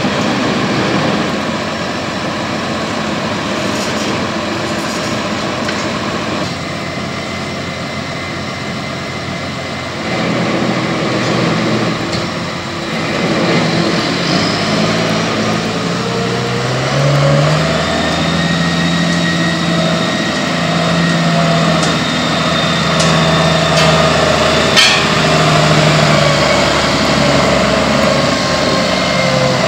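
A heavy vehicle's engine running, its pitch stepping up about halfway through and holding there. A single sharp knock comes about five seconds before the end.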